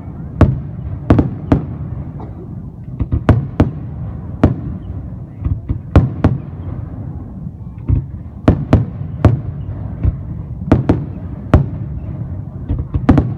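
Fireworks display: about twenty sharp bangs of bursting shells at irregular intervals, sometimes two or three in quick succession, over a continuous low rumble.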